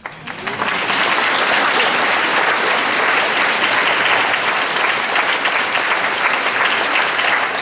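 Audience applauding: the clapping starts suddenly, builds within the first second and then holds steady.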